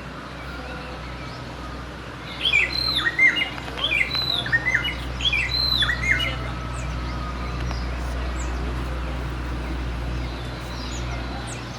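A bird calls from about two and a half to six and a half seconds in: a quick run of repeated chirping notes, loud and close. A steady low rumble sits under it.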